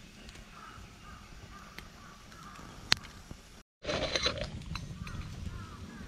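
Wood campfire crackling under a camping pot, with one sharp pop about three seconds in and birds calling faintly. After a cut, metal clinks as the pot's lid is lifted off the boiling water.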